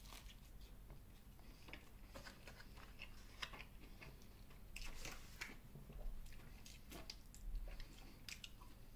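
A person biting into and chewing a mouthful of chicken burger: faint, scattered mouth clicks and smacks.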